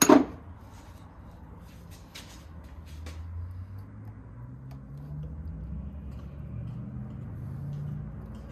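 A loud metal clink of hand tools or a freed part being set down, then a few lighter clicks. From about three seconds in a low engine drone rises underneath and holds.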